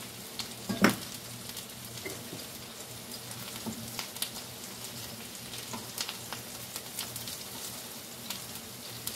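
Sliced onions frying in canola oil in a cast-iron skillet: a steady sizzle with scattered small pops and crackles, one sharper pop about a second in.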